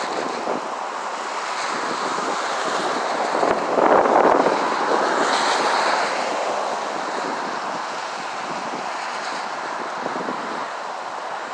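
Wind buffeting the phone's microphone: a steady rushing noise that swells louder for a couple of seconds about four seconds in.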